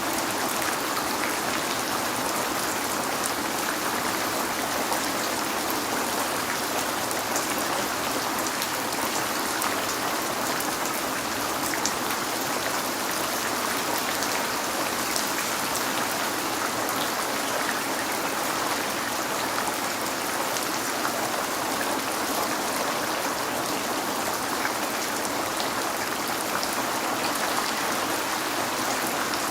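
Steady rain falling on a window, a dense even hiss of rain with scattered drops ticking against the glass.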